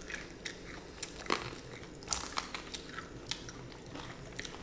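Biting and chewing crispy fried chicken, an irregular run of small crunches and crackles.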